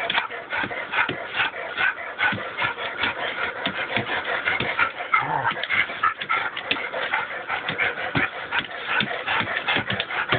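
A shepherd-Labrador mix dog playing tug of war with a toy: a busy stream of clicks, scuffs and shaking noises as it pulls, with brief dog vocal sounds mixed in, one about halfway through.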